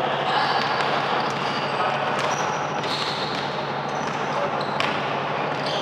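Indoor basketball game noise: the ball bouncing on the court and sneakers squeaking in short, high-pitched chirps several times, over a steady din of play.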